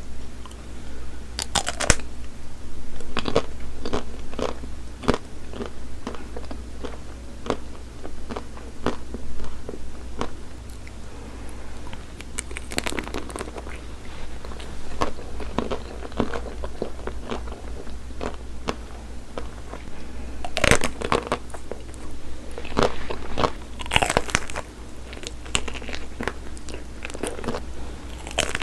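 Biting into and chewing frozen chocolate-coated ice cream bars: sharp crunching cracks as the hard chocolate shell breaks, in clusters every few seconds, with chewing in between.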